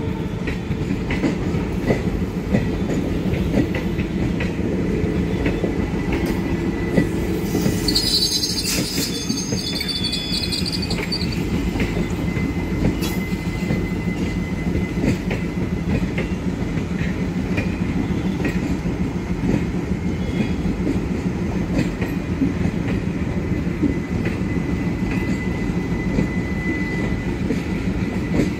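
Indian Railways passenger coaches rolling past on the track: a steady wheel-on-rail rumble with irregular clicks over the rail joints. A high wheel squeal rises for a few seconds about eight seconds in.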